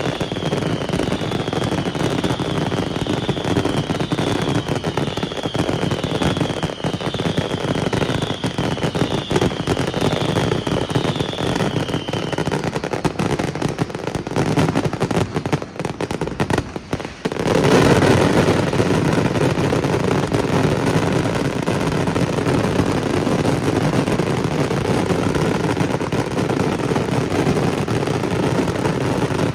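Fireworks display: dense, rapid crackling and bangs, with a high falling whistle repeating a bit more than once a second through the first dozen seconds. A little past halfway a sudden, louder and denser barrage sets in and keeps going.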